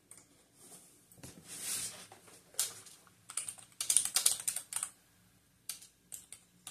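Typing on a computer keyboard: a quick run of keystrokes about three to five seconds in, with a few single key clicks before and after it.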